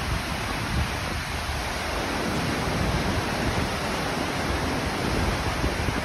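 Steady, unbroken rushing of a waterfall.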